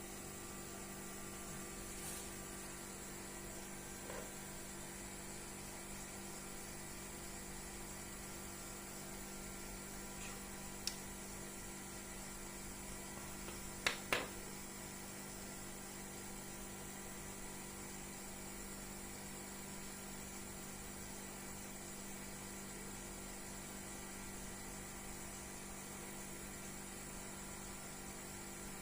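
Steady electrical hum with a faint hiss, with a single short click a little before halfway and two quick clicks close together just after.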